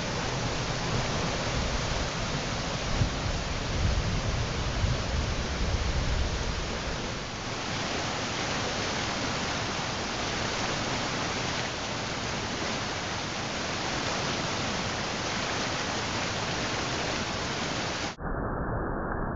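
Rushing water of a small woodland waterfall cascading over boulders, as a steady, even rush. It is deeper in the first few seconds and turns briefly muffled near the end.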